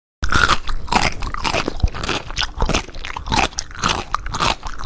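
Crisp pani puri shells crunching: many sharp crunches close together.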